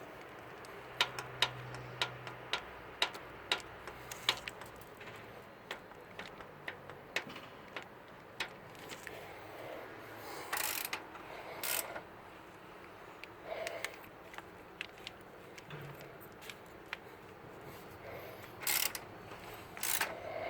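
Jeep Grand Cherokee WJ's 4.7-litre V8 engine running with sharp, irregular knocks and clicks, a knock that the owner places in cylinder 8.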